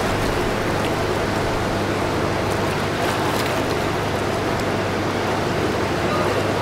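Steady low boat-engine drone under a constant hiss of water and wind on the river.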